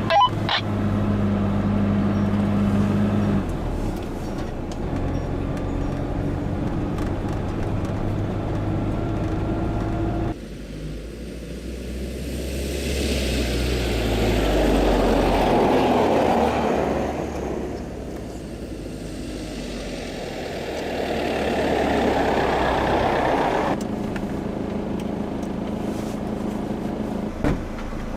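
Iveco Daily van's engine running steadily. Midway the sound changes to a swelling rush that rises and falls twice before the steady engine hum returns.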